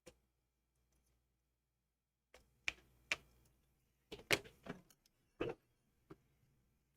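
Faint sharp clicks and taps of small tools on an opened iPhone X, about eight in irregular succession, as its screen flex-cable connectors are unplugged from the logic board.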